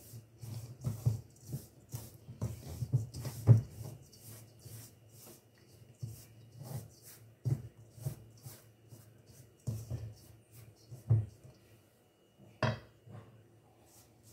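Wooden spoon scraping through a crumbly flour-and-butter mixture and knocking against a stainless steel mixing bowl during stirring, in irregular strokes with a sharp knock near the end.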